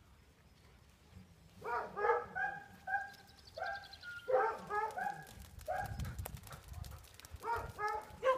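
Dogs barking during play: short, high barks in quick bunches of two or three, starting about a second and a half in.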